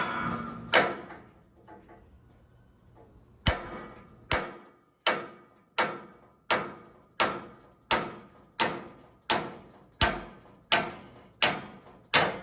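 Big hammer striking a brass drift to drive a stuck pivot pin out of a hydraulic cylinder, each blow a sharp metallic clank with a brief ring. Two blows come at the start, then a pause, then steady blows about one and a half per second from about three and a half seconds in, as the pin starts moving.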